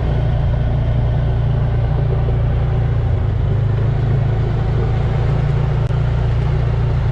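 Off-road vehicle engine running at a steady speed while riding, a constant low engine sound with no revving.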